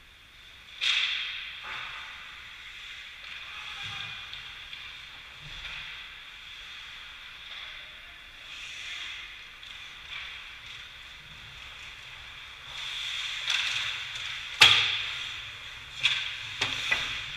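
Ice hockey play: skate blades scraping on the ice, with sharp cracks of stick, puck and boards. One crack comes about a second in, the loudest near fifteen seconds, then a quick run of clacks as play reaches the net.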